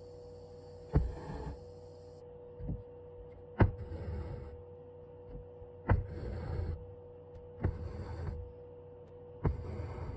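Embroidery needle punching through thin canvas stretched in a hoop: five sharp ticks about two seconds apart, each followed by the short rasp of cotton floss being drawn through the fabric. A steady hum runs underneath.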